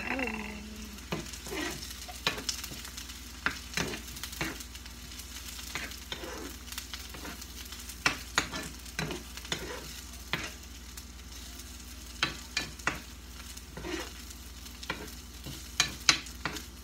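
Leftover chicken strips frying with garlic and onion in a skillet, sizzling steadily while a spatula stirs them, knocking and scraping against the pan in irregular clicks.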